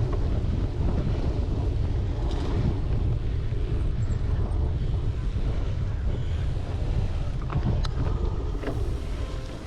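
Wind rumbling on a bike-mounted GoPro's microphone while riding a cyclocross course, with a few sharp knocks from the bike near the end.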